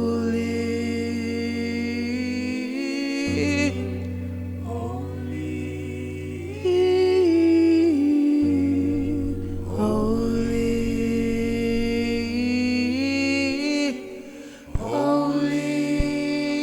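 Slow worship music: wordless, drawn-out singing gliding between long held notes over a sustained low accompaniment that changes note every few seconds. The low notes drop out and the sound dips briefly near the end.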